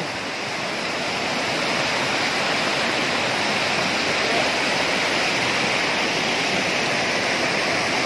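Waterfall about 20 m high pouring onto rocks: a steady, even rush of falling water.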